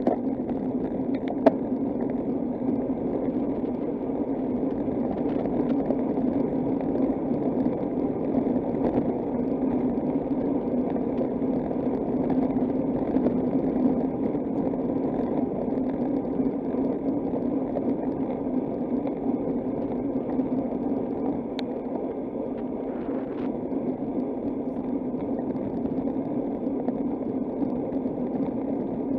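Steady rush of wind and road noise from riding a bicycle, with a sharp click about a second and a half in.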